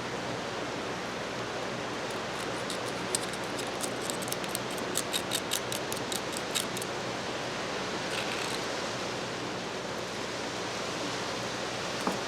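A steady hiss underneath a run of light, sharp clicks and taps, a few a second, from about two to seven seconds in, as the small metal parts of a ratchet head are handled. A single further tap comes near the end.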